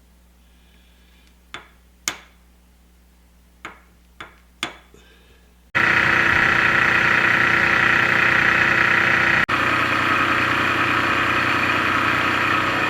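A few sharp metal taps on the workpiece, then a milling machine cutting steel: a loud steady machining noise that starts abruptly about halfway through.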